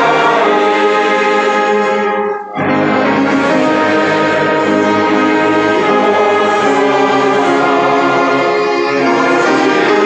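Amateur church orchestra playing sustained chords, with the brass to the fore over strings. The sound breaks off briefly about two and a half seconds in, then the chords resume.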